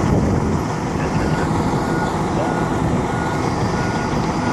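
Military helicopter flying overhead, its rotor and engine noise a steady rumble. A vehicle's reversing alarm beeps repeatedly in the background.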